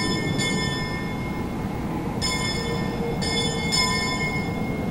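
Steady rushing wind-like ambience under several high, steady ringing tones sounding together, which come in three stretches: about the first second, then from a little after two seconds, then from a little after three seconds to near the end.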